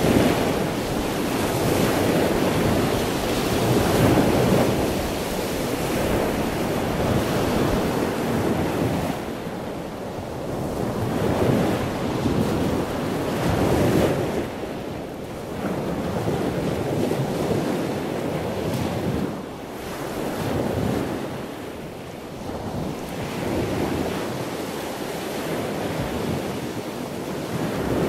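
Outdoor rush of wind and water with no clear engine or other tone, swelling and fading every few seconds.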